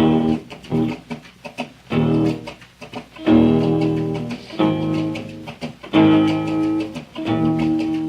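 Solo blues guitar playing a boogie instrumental intro in a driving rhythm of plucked notes with sharp attacks, heard from a 1949 78 rpm record.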